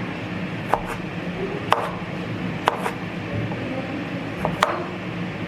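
Kitchen knife chopping on a cutting board: sharp knocks about a second apart, four clear strokes with a lighter tap just before the last.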